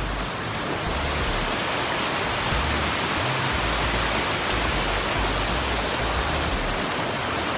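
Waterfall: a loud, steady rush of falling water that cuts in abruptly.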